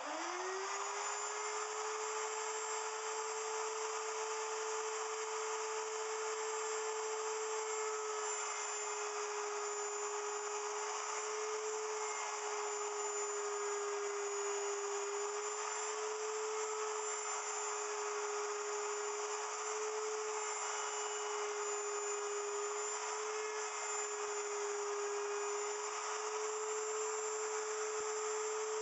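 Wood router on a router milling machine spinning up to speed and then running steadily as it cuts a taper into the side of a cedar block, its high motor whine dipping slightly in pitch now and then as the bit takes load.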